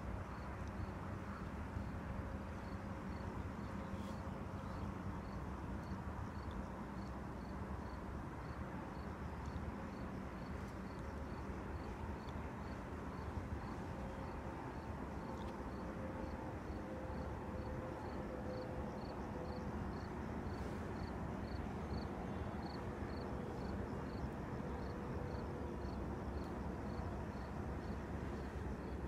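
Open-air ambience: a steady low rumble with a faint hum, and a high chirp repeating evenly about one and a half times a second, typical of an insect such as a cricket.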